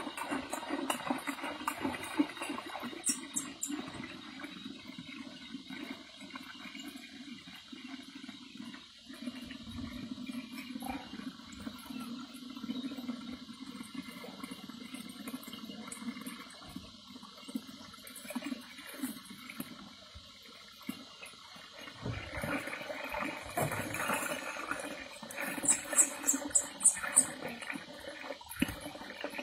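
Water pouring from a plastic jerrycan into a half-filled cement basin, a steady gurgling splash that grows louder and splashier about two-thirds of the way through.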